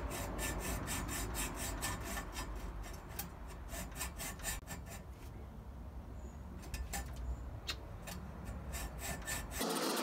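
Hacksaw cutting through a metal frame tube in quick, regular back-and-forth strokes. The strokes thin out midway, pick up again, and stop suddenly just before the end.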